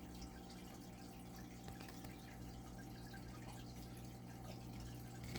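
Quiet room tone: a steady low hum with faint, scattered small ticks.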